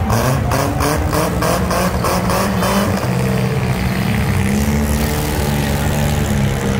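Several demolition derby cars' engines running together, one revving hard with a rapid pulsing over the first three seconds before settling back to a steady run.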